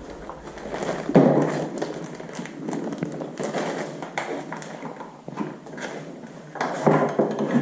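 Irregular clicks, taps and knocks of hard plastic being handled: a metal detector's battery compartment being opened and batteries fitted, with rustling in between and a louder flurry of clicks near the end.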